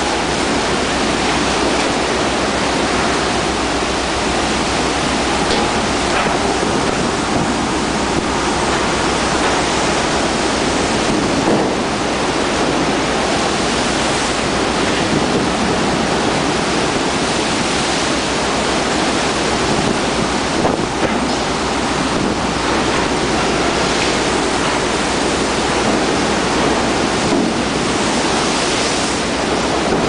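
Heavy Atlantic seas surging and breaking white against the hull of a jack-up drilling rig under tow, a steady loud rush of water.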